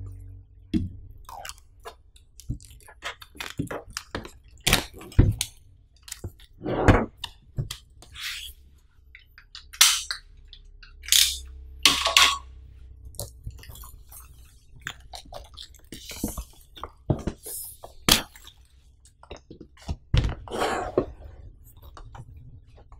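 Clear plastic shrink wrap being cut, peeled and crinkled off a cardboard MacBook Air box: irregular crackling and rustling of the film, with a few light knocks as the box is handled.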